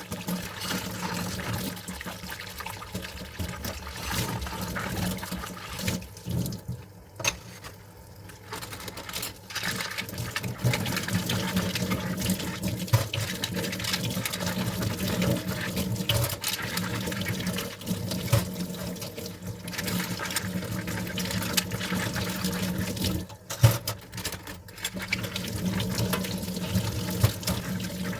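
Tap water running into a sink while dishes are washed, with scattered light clinks and knocks of dishes. The water sound dips briefly twice.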